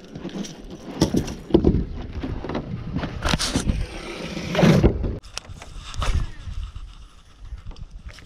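Irregular knocks, clatter and scraping from handling gear on a fishing boat, with a louder burst about halfway through that cuts off suddenly.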